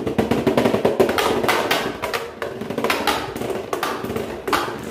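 Triumph Dragon Beyblade spinning top clattering in a clear plastic stadium: a quick, irregular run of hard plastic knocks and rattles as it bounces around the bowl.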